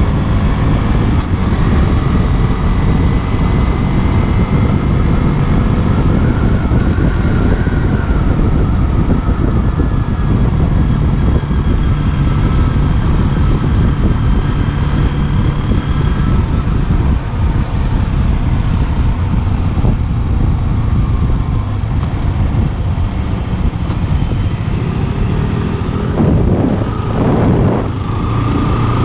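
KTM Duke 125's single-cylinder four-stroke engine running under way at around 40 km/h, its pitch rising and falling with throttle and gear changes, buried in heavy wind buffeting on an unprotected action-camera microphone. Near the end the bike slows for a turn and the engine note changes as the wind eases.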